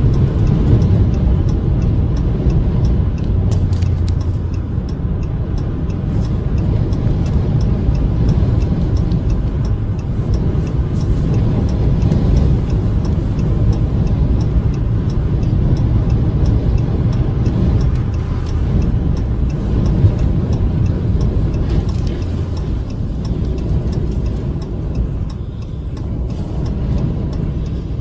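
Heavy, steady wind and road noise inside a moving vehicle on a highway in a strong gale, with a faint, evenly spaced ticking over it and one brief louder knock about two-thirds of the way through.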